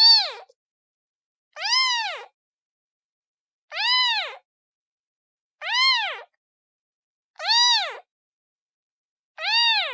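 Domestic kitten meowing over and over: six short, high-pitched meows, each rising then falling in pitch, about one every two seconds with silence between.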